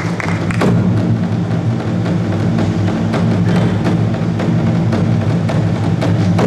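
Korean traditional percussion ensemble playing: repeated sharp strikes at an uneven pace over a steady low drone.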